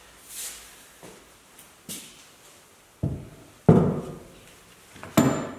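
Heavy clunks of a Porsche 911 rear trailing arm assembly falling: two loud, dull thuds about three seconds in, the second the loudest, then a sharper metallic knock with a brief ring near the end.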